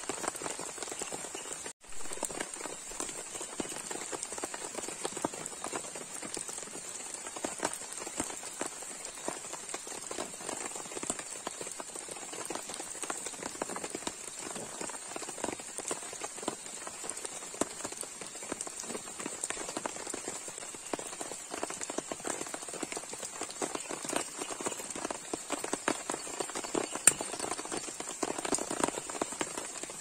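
Heavy rain falling on a tent and the ground, a dense, steady patter of drops with a steady high hiss above it. The sound drops out briefly about two seconds in, and there is one sharp tick near the end.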